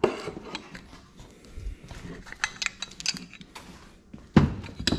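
Clinks, clicks and rattles of hand tools and small metal parts being handled, with a louder knock about four seconds in.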